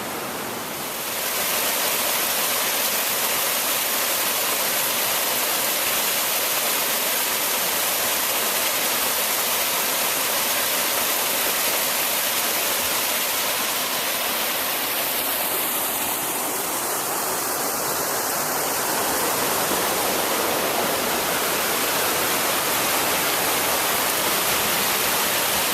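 Small waterfall and stream rushing steadily, a close, even roar of falling water that grows louder about a second in.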